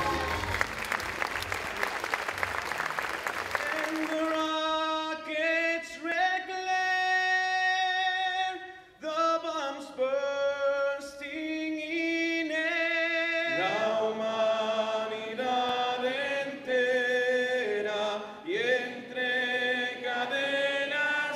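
An audience applauding and cheering, then from about four seconds in, voices singing a slow song. More and lower voices join about two-thirds of the way through.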